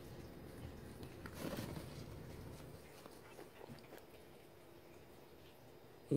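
Faint scuffling and rustling of dachshund puppies play-biting and wrestling on a fleece blanket. A dog barks sharply right at the end.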